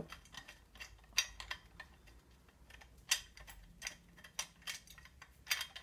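Irregular light metallic clicks and taps of a nut and bolt being undone by hand on a chromed bicycle springer fork link, the metal parts knocking together as they are worked apart.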